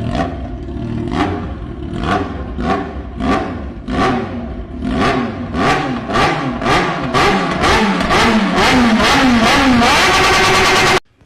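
An engine revved in repeated sharp blips that come faster and faster, each with a falling pitch, then held before cutting off suddenly near the end.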